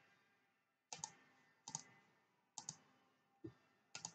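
Computer mouse clicking: a handful of sharp clicks under a second apart, most in quick pairs.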